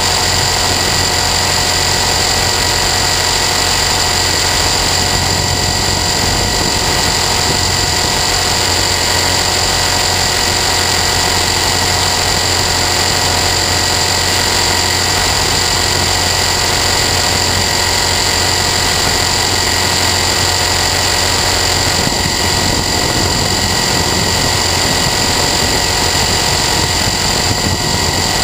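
T-Rex 450 Sport electric RC helicopter running at a steady head speed, heard from a camera mounted on the helicopter: a constant whine from the brushless motor and gears over the hum of the rotor, with no change in pitch.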